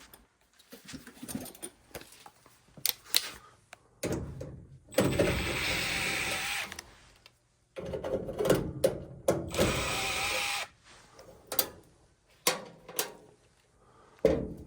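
A power drill running in two steady bursts of about two and three seconds, among clicks and knocks of tool handling.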